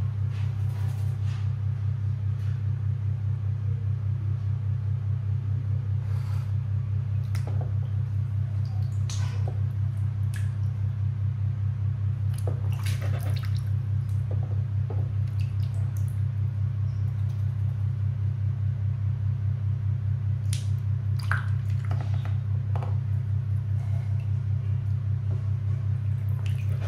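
Domestic duck dabbling its bill in a basin of water: scattered small splashes and short clicks, over a steady low hum that is louder than the splashing.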